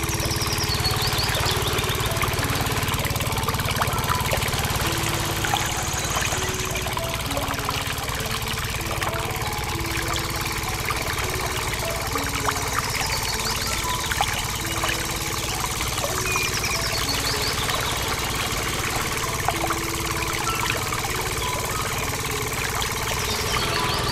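A small motor runs steadily with an even buzzing hum, driving a miniature water pump as water pours into a tank.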